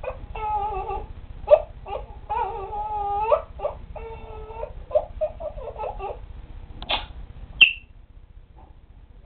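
African grey parrot vocalising in a run of drawn-out, wavering, voice-like notes. Near the end comes a sharp click, then a short high chirp.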